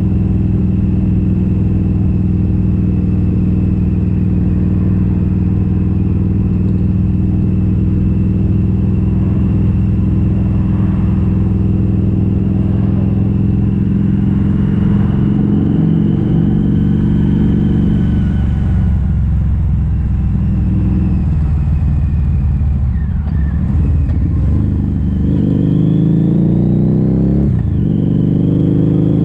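Harley-Davidson V-Rod Muscle's liquid-cooled V-twin running through V&H Competition Series slip-on mufflers with the catalytic converters removed, holding a steady note under way. About two-thirds through the note drops off, then climbs again in rising pulls with a brief dip between them near the end.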